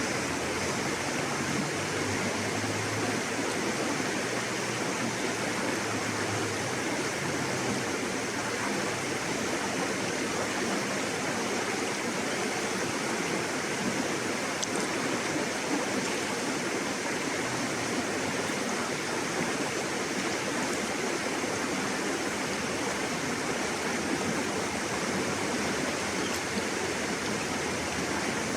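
River water rushing and splashing over rocks: a steady, unbroken rush.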